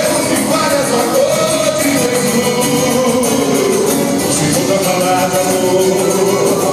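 Gospel worship song: singing over steady instrumental accompaniment.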